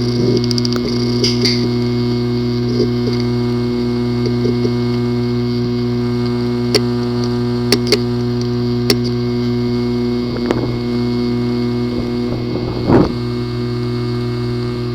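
Hard drive with a physically damaged disk assembly making a steady buzz, with a handful of sharp clicks in the second half and a louder brief burst near the end.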